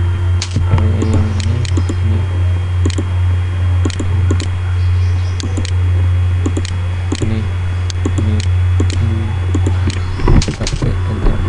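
Computer mouse and keyboard clicks, short sharp clicks at irregular intervals about one or two a second, with a quick cluster of louder clicks near the end, over a steady low electrical hum.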